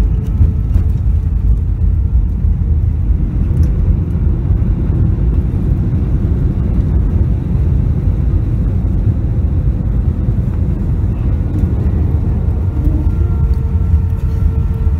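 Jet airliner cabin noise during the landing rollout, heard inside the cabin: a loud, steady low rumble from the runway and engines, with a steady engine hum that grows a little stronger near the end.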